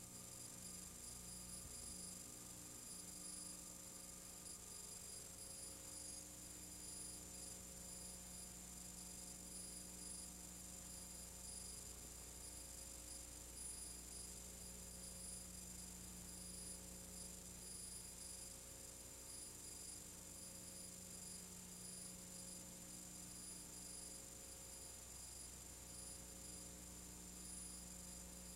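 Faint, steady electrical hum and hiss on an otherwise empty sound track, with no other sound.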